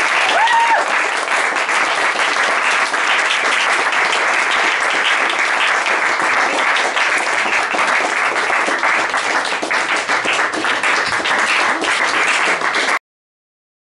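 Audience applauding: dense, steady clapping that cuts off suddenly about a second before the end.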